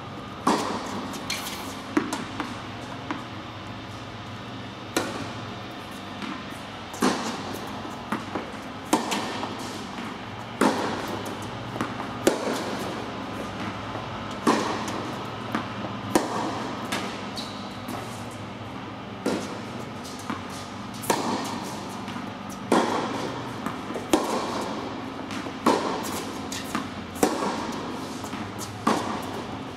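Tennis balls struck by racquets in a baseline rally, with the ball bouncing between hits. There is a sharp pop about every one and a half to two seconds, each ringing briefly in the echo of an indoor court hall.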